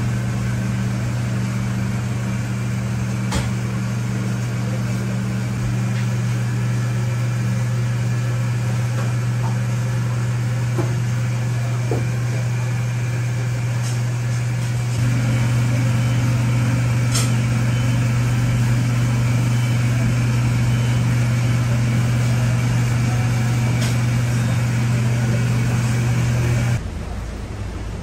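Steady low machine hum that gets louder about halfway through and cuts off suddenly near the end, with a few light clicks of handling over it.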